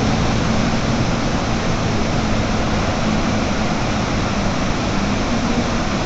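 Iguazu Falls: the steady, loud rush of many cascades of falling water.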